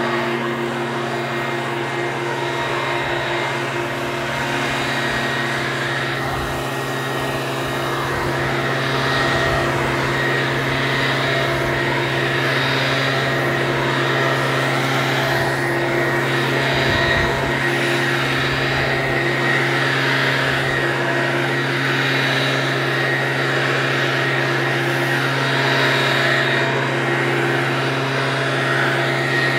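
Leaf blower running steadily, a constant engine hum with a rush of air noise over it.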